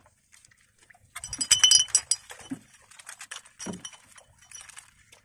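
Metal-framed net crab trap being handled, with a quick run of sharp metallic clinks and rattles about a second in, then scattered lighter clicks and rustles.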